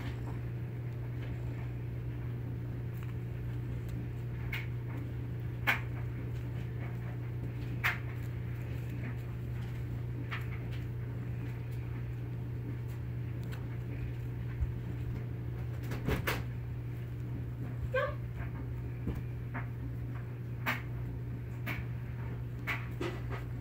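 A cat playing with a dangled feather: scattered light taps and clicks as it swats at it, and one short falling cat call about three-quarters of the way through, over a steady low hum.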